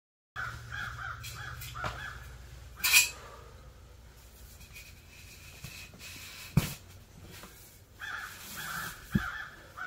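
Steel stovepipe being worked up into the tent's roof stove jack: a few sharp metal knocks and clanks, the loudest about three seconds in, over a faint low hum. Two runs of short, repeated squawk-like calls come near the start and again near the end.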